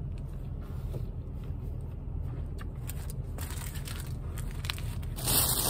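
Plastic onigiri wrapper crinkling and chewing over a steady low rumble inside a car. About five seconds in, a louder rustle of plastic begins.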